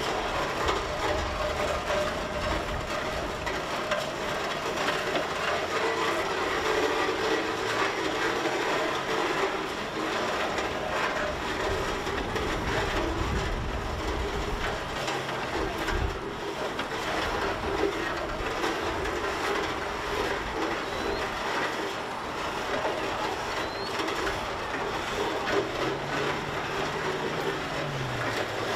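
Vintage steam traction engine running as it drives slowly over gravel: a steady mechanical sound of the engine and its running gear, with steam escaping near the front wheels.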